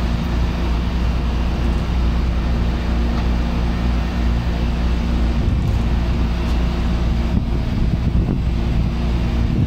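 Steady machinery drone from running HVAC equipment: a strong low hum with a few steady low tones under an even rushing noise.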